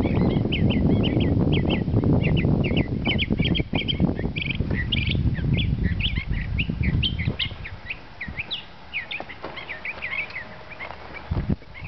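Many small birds chirping in quick, dense runs of short high calls, over a low wind rumble on the microphone. The rumble drops away about two-thirds of the way through, and a single thump follows near the end.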